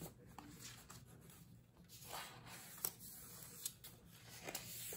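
Faint rustling of paper sticker sheets and a thin plastic sleeve being handled and flipped, with three light taps in the second half.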